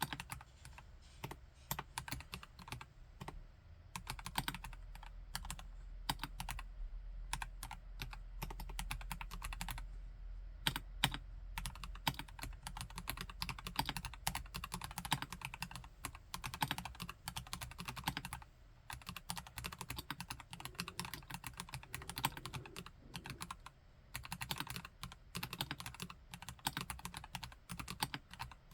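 Fast, continuous typing on a KLC Nori plastic-case mechanical keyboard with Gateron Yellow Pro V2 linear switches, a dense run of keystrokes with a couple of brief lulls.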